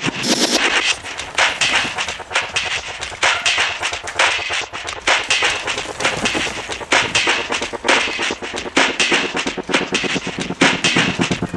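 Loud soundtrack music with dense, hard-hitting drums.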